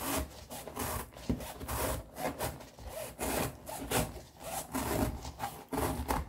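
A knife sawing back and forth through the pleated paper media of a used Ford FL500S oil filter element, cutting the element free from its metal end cap. Quick, repeated rasping strokes.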